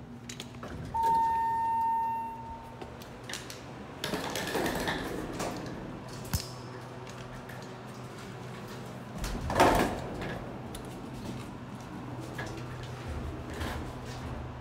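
Steady low hum with a single electronic beep lasting about a second, a second in, then scattered clunks and rustles.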